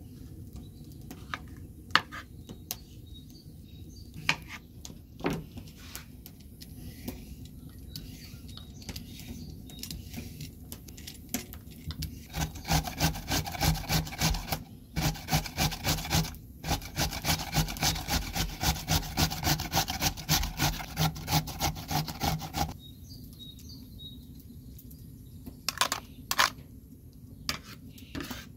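A cucumber being trimmed with a knife on a bamboo cutting board in scattered clicks and taps, then grated on a metal-faced box grater: a rhythmic rasping of about two to three strokes a second that runs for some ten seconds and stops a few seconds before the end.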